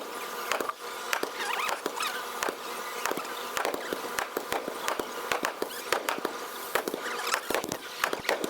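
A crowd walking by: irregular taps and scuffs of many footsteps, several a second, over a steady background haze.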